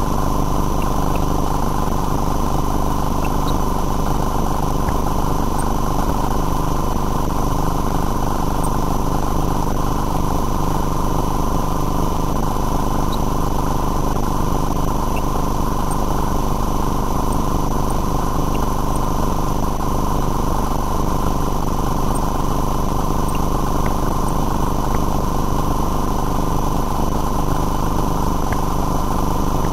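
A motor running steadily at an even drone that never changes, with constant thin electrical whine tones above it.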